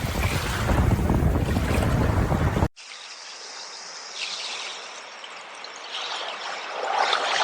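Ocean waves rushing with wind noise on the microphone; about two and a half seconds in this cuts off abruptly and a quieter trickling stream takes over.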